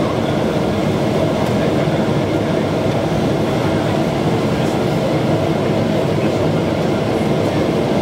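Boeing 777-224ER cabin noise on final approach: a steady, even roar of the jet engines and the airflow past the fuselage, heard inside the cabin by the window.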